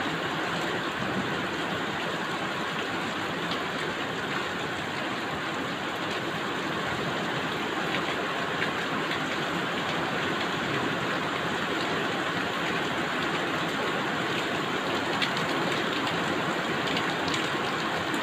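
Heavy rain pouring down steadily: an even hiss with scattered faint drop taps.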